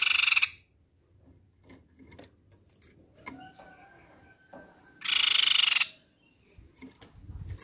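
Crescent-chested babbler (tepus pipi perak) giving a harsh, buzzy rattling call twice: once right at the start and again about five seconds in, each lasting about a second.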